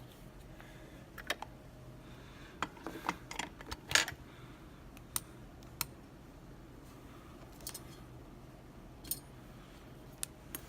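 Scattered sharp metallic clicks and taps as a mortise lock and small tools are handled during disassembly, about a dozen in all, with a cluster in the first half and the loudest about four seconds in.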